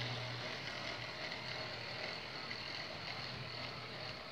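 HO-scale model freight train rolling along the track: a steady whir of small metal wheels on rails, with a low hum that stops about half a second in.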